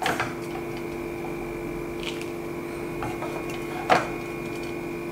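A flat spatula scraping and knocking in a metal pan as cooked poha is scooped into a plastic bowl: a few short scrapes and taps, the loudest near four seconds in. A steady electrical hum runs underneath.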